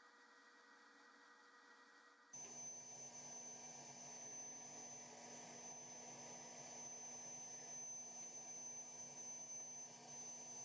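Near silence: faint background hiss with a few thin steady tones, changing abruptly to a slightly louder hiss with a high steady tone about two seconds in.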